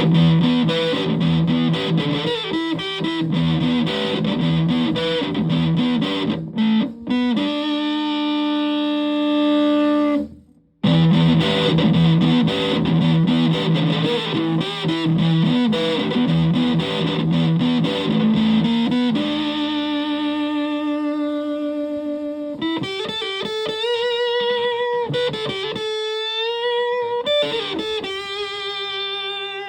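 Electric guitar with humbucking pickups played through a Tone Bender MKII fuzz pedal into a Fender Twin Reverb–style valve amp, giving a thick fuzz tone. It plays heavy low riffs and a held chord that stops abruptly about ten seconds in. After a brief gap the riff returns, and the second half turns to sustained single lead notes with string bends and vibrato.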